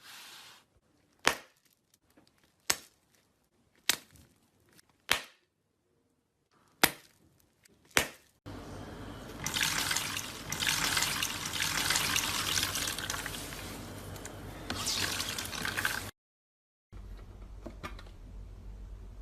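Slime being handled: six sharp pops, about a second apart, then a long stretch of wet crackling squishing, cut off suddenly, followed by quieter squishing.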